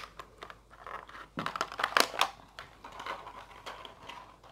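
Handling noise from plastic makeup tubes and packaging close to the microphone: a run of clicks and rustles, loudest about a second and a half to two and a half seconds in.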